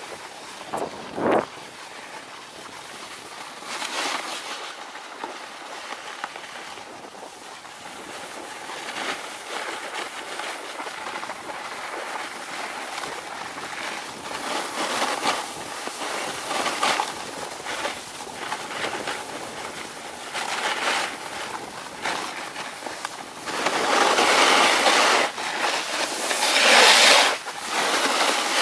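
Snowboard sliding and scraping over packed snow, swelling and fading with each turn and growing louder near the end. A brief knock about a second in.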